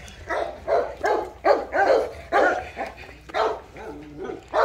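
A dog barking over and over, short high-pitched barks about two a second.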